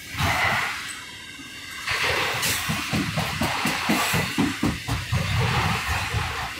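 Freight cars of an intermodal train loaded with truck trailers rolling past, steel wheels clattering in quick, uneven knocks over the rail joints above a steady rush. The clatter sets in about two seconds in, after a brief swell of noise at the start.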